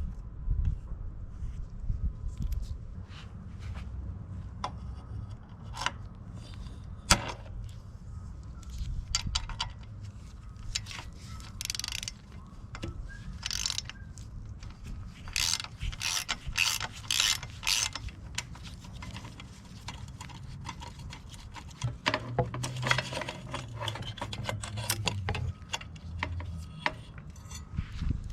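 Ratcheting clicks and metal clatter in irregular bursts while a mountain bike is being taken apart.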